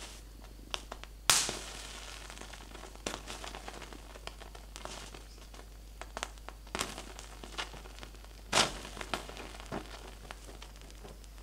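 Manganese heptoxide, made from potassium permanganate and concentrated sulfuric acid, setting added ethanol alight: sharp pops as the alcohol is oxidised at once, the loudest about a second in and another near nine seconds, with small crackles between over a low hiss.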